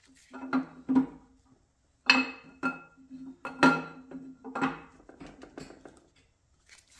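Camshaft being pulled out of an LS7 engine block without care, its lobes and journals knocking against the cam bearings in a string of ringing metallic clinks, loudest about two, three and a half and four and a half seconds in, then smaller taps. The cam is scrap with one lobe worn out of round.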